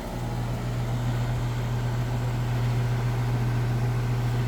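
Ruud heat pump outdoor unit running steadily, a constant low hum with fan air noise over it. It is running with its contactor held in by a jumper wire that bypasses the failed common on the defrost control board.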